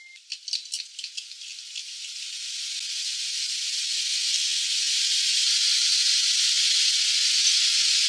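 Beer foam fizzing in a glass. A few crackles of popping bubbles come in the first two seconds, then a steady, high fizzing hiss grows gradually louder.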